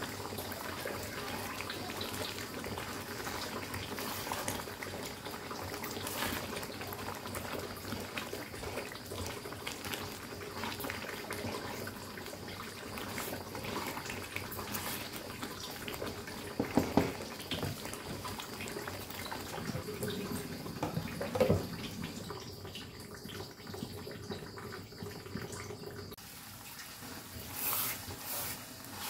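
Mushroom rendang bubbling and spattering as it simmers and reduces in a wok, stirred with a spatula. Two louder knocks stand out a little past the middle.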